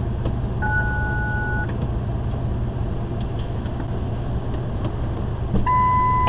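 Vehicle engine idling steadily while the vehicle sits stopped. About a second in, a one-second electronic beep sounds on two pitches at once, and near the end another steady electronic tone begins.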